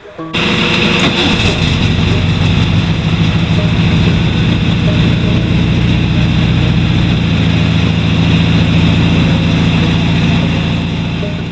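A car engine running steadily. It cuts in about half a second in and eases off near the end.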